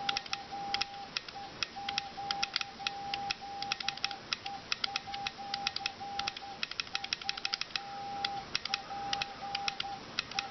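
Morse code sounded by an amateur HF transceiver as a single steady tone switched on and off in dots and dashes, keyed over a wireless Arduino keyer. Rapid sharp clicks of the keying go along with it.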